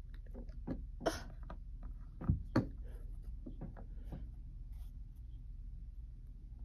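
Light, irregular clicks and taps of small plastic toy figures being handled and set down on a tabletop, with two louder knocks about two and a half seconds in, then only a low steady room hum.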